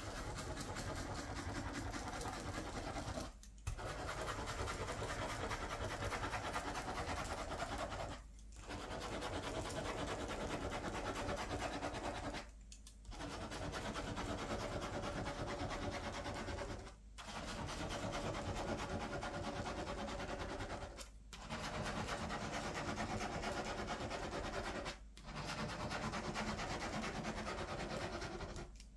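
Plastic ballpoint pen scribbling loops on a stack of paper on a clipboard: a continuous scratchy writing sound, broken by a brief pause about every four seconds as the pen is lifted.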